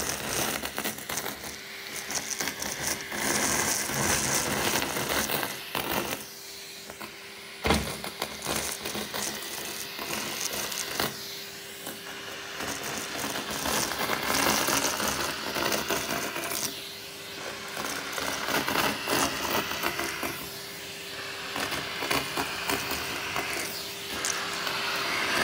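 Vacuum cleaner running with a wide floor nozzle on a metal wand, sucking paper confetti off carpet: a steady motor whine under a noisy rush of air, with the confetti crackling and rattling up the tube. A sharp knock about eight seconds in.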